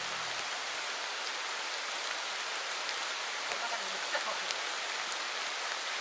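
Heavy rain pouring steadily onto the surface of a stream and the foliage around it, with a few scattered drops ticking close by.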